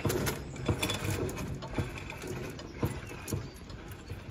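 Level crossing barrier machine working: a low motor hum with irregular mechanical clicks and knocks, fading toward the end.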